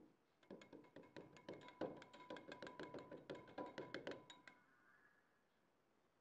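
Small wire whisk stirring thin sauce in a glass tumbler, its wires clinking rapidly against the glass, about six or seven clinks a second, with the glass ringing. The whisking stops near the end of the fourth second and a faint ring fades out.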